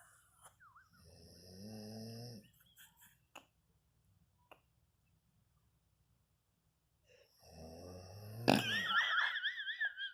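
Snoring: two long, low snores, one about a second in and one about seven seconds in. The second ends in a click and a wavering high whistle.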